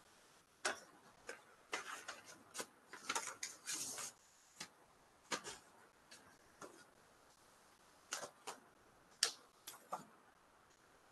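Faint, irregular paper rustles and small taps as a sealed bid envelope is opened and its pages handled, with a longer rustle about three seconds in.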